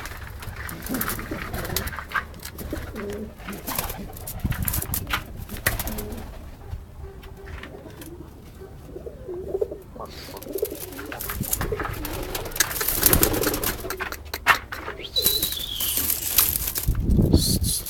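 Pigeons cooing, low and repeated, with scattered clicks and rustles and a brief high chirp about fifteen seconds in.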